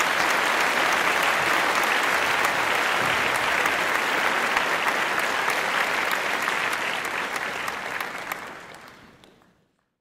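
A group of people applauding, many hands clapping steadily; the applause fades away near the end.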